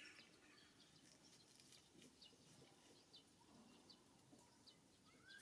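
Near silence, with faint short high chirps now and then.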